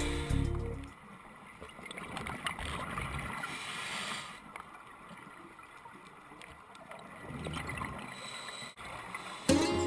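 Music fades out within the first second; then muffled underwater sound picked up through a dive camera's housing, with the bubbling of scuba divers' exhaled air swelling and easing. Music starts again near the end.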